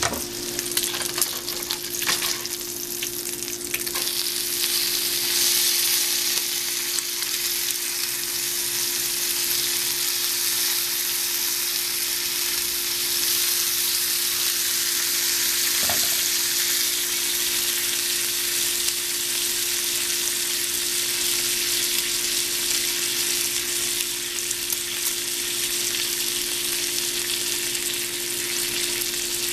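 Strips of maple bacon sizzling and crackling in a nonstick frying pan. A steady low hum sits underneath, and there is a single knock about halfway through.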